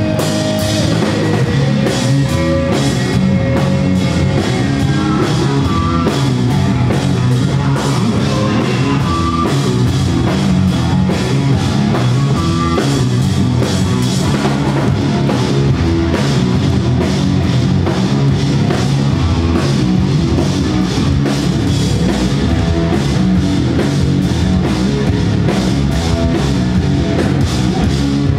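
Rock band playing live and loud: electric guitar, electric bass and a drum kit with steady, busy drumming.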